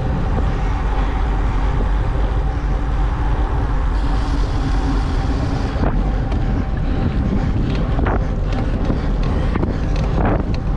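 Wind buffeting the microphone of a bike-mounted camera on a road bike at about 30–35 km/h, a steady loud rumble with tyre noise on rough tarmac. From about six seconds in, a scatter of short knocks and clicks breaks through.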